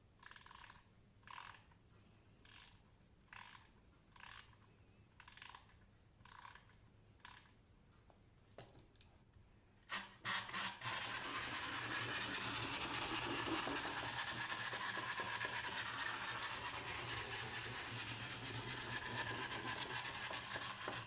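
Plastic fish wind-up toy being wound: a short burst of ratchet clicks with each turn of the key, about once a second. About ten seconds in it is let go, and its clockwork motor whirs steadily as it runs, driving the waggling tail and wheels.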